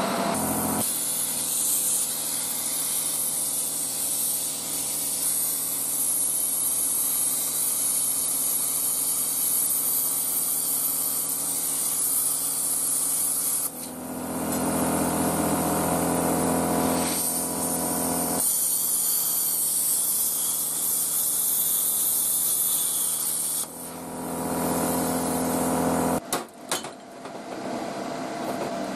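Parkside PPSK 40 A1 plasma cutter cutting 5 mm steel: a loud steady hiss of the plasma arc and air jet over the hum of the machine's built-in compressor. The cutting hiss stops about 14 seconds in, starts again about 18 seconds in, and stops again near 24 seconds. In the gaps the compressor and air keep running.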